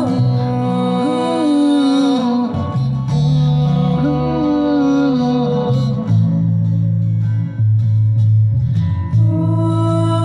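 Live acoustic band: strummed acoustic guitar and plucked upright bass under a sung melody. The singing pauses for a few seconds past the middle while the instruments carry on, and comes back in near the end.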